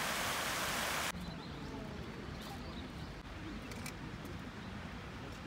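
Garden fountain jets splashing into a pool: an even hiss of falling water that cuts off suddenly about a second in, leaving a quieter outdoor background with a faint murmur.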